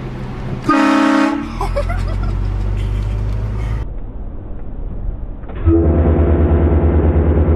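A vehicle-mounted train horn setup, four air horns fed by an onboard compressor, blasts twice: a short blast about a second in, then a longer, louder blast starting near the end. A low steady sound runs between the two blasts.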